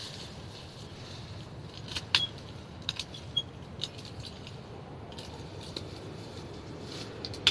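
Several sharp metallic clicks and ticks at irregular spacing, the loudest about two seconds in and another just before the end, a few leaving a brief ringing tone, over a steady low background rumble.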